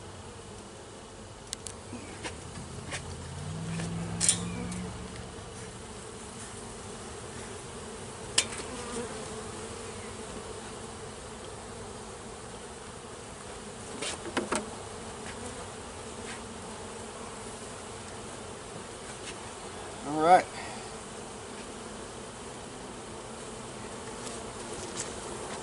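Honey bees buzzing steadily around an open hive during an inspection, with scattered sharp clicks and knocks as frames are worked. A brief louder, wavering buzz about twenty seconds in.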